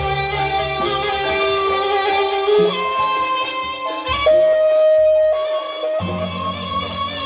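Sasak gendang beleq ensemble playing: a bamboo flute (suling) carries a melody of held notes over a steady beat of cymbal clashes about twice a second.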